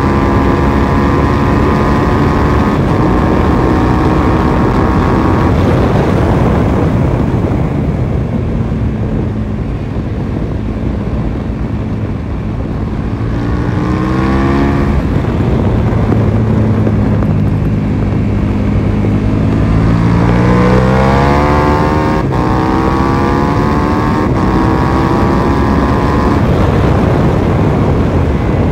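KTM 1290 Super Duke R's V-twin engine on track: pulling hard at high speed, then backing off so the note fades for several seconds into a corner. It winds back up with rises and breaks in pitch, then accelerates hard with quick upshifts about every two seconds near the end.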